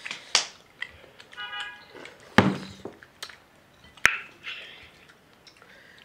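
A partly filled drinks bottle flipped and landing on a cloth-covered table: a few separate thuds and knocks, the loudest about two and a half seconds in, a sharp click about four seconds in, and another thud at the very end.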